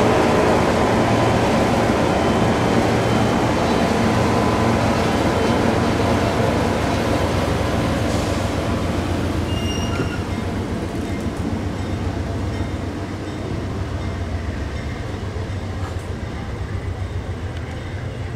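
Amtrak passenger train, led by a P42DC diesel locomotive, running past: a steady rumble of wheels on rail with a low diesel drone, gradually fading as it moves away.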